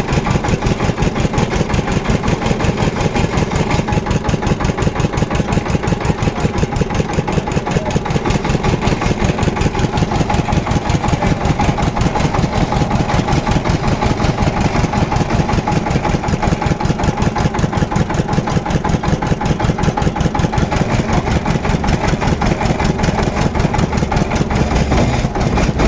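Engine-driven sugarcane juice crusher running steadily in a fast, even chugging beat as cane stalks are pressed through its rollers.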